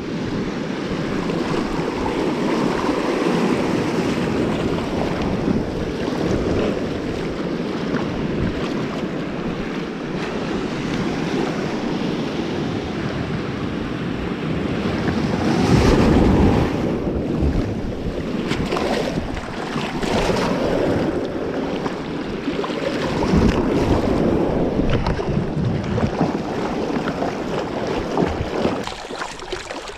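Sea waves washing and splashing close by, with wind rumbling on the microphone; a louder surge of water about halfway through.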